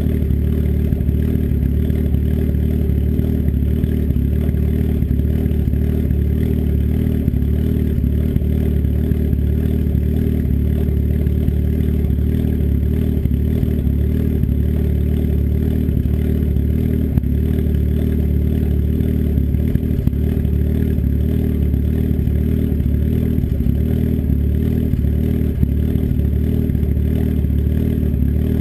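Turbocharged engine with an S257 turbo and custom cams idling steadily through an open 3-inch turndown dump off the downpipe, with no muffler.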